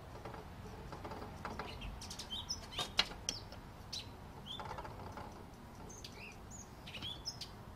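A few light, sharp clicks about three seconds in, from the metal brush-in-cap of an acetone can being lifted and handled. Faint bird chirps come now and then.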